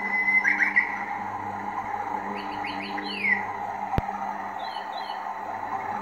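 A motion waterfall picture's built-in sound playing a recording of rushing water with birds chirping, starting abruptly. A single click about four seconds in.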